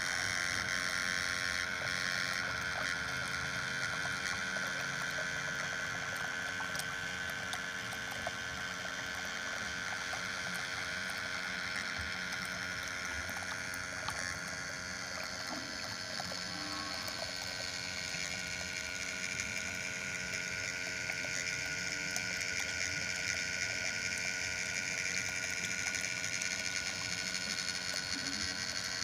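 A small motor running with a steady whir, slowly shifting in pitch over the course of the sound.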